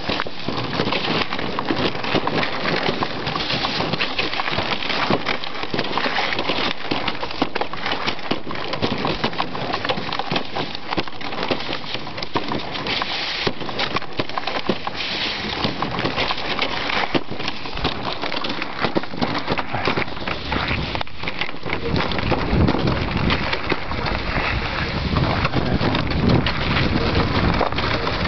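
A dog sled moving over snow and ice: a steady crackling and scraping of runners and paws. From about three-quarters of the way in, wind rumbles on the microphone.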